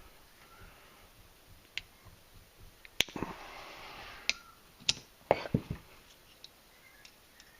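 Several sharp clicks and knocks, the loudest about three seconds in and a quick cluster around five seconds in, with a short rustling noise between them.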